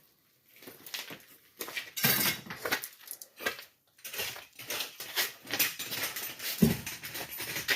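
Irregular clinking, knocking and scraping of hard objects, with louder clusters of knocks about two seconds in and near the end.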